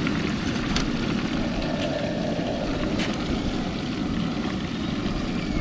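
Propane turkey-fryer burner running steadily under an aluminium pot while french fries bubble and sizzle in the peanut oil, the gas turned up to bring the oil back up to frying temperature after the fries went in.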